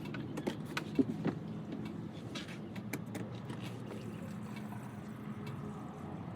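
Light clicks and knocks of the fuel filter housing and its parts being handled, mostly in the first few seconds, the sharpest about a second in. A steady low mechanical hum runs underneath.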